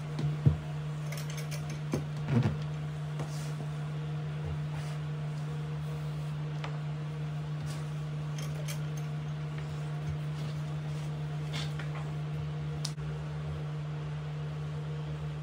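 Steady low room hum throughout, with a few soft knocks and cloth rustles in the first few seconds as a helmet is covered with a cloth bag and handled on the bench, then a few faint clicks.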